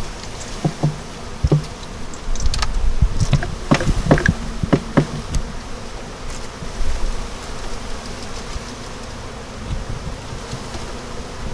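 Honeybees buzzing en masse as a package of bees is shaken out into a hive. A run of knocks and taps over roughly the first five seconds comes from the package being handled.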